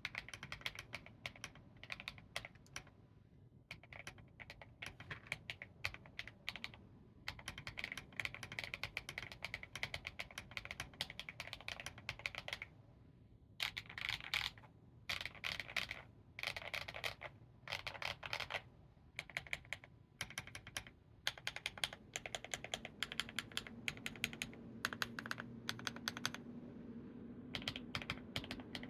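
Typing on a Keychron V5 Max mechanical keyboard with lubed HMX Swift switches, doubleshot PBT KAT keycaps, a plastic case with foams and PET and IXPE sheets: a deep, poppy keystroke sound. Keystrokes come in fast runs with short pauses, and one break of about a second falls near the middle.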